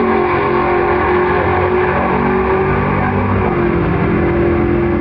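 Two classic American drag cars making a side-by-side pass, engines at full throttle as they accelerate down the strip, their pitch shifting as they climb through the revs.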